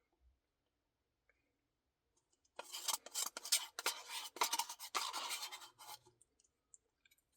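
A plastic spoon scraping and digging in a Dairy Queen Blizzard cup in a quick, irregular run of scratchy strokes. It starts a couple of seconds in and stops about a second before the end.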